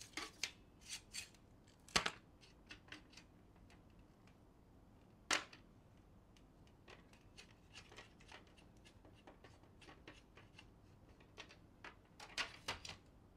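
Scattered light clicks and taps of hard plastic as the printer's removable duplex unit is handled and turned over in the hands. There is a sharper click about two seconds in, another just after five seconds, and a quick run of clicks near the end.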